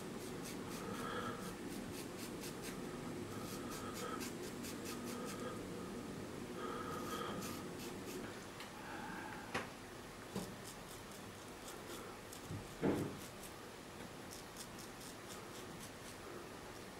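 Shavette razor scraping stubble off a gel-lathered scalp in short strokes, a fine crackling rasp as the blade cuts the hair. A couple of soft knocks sound after the halfway point.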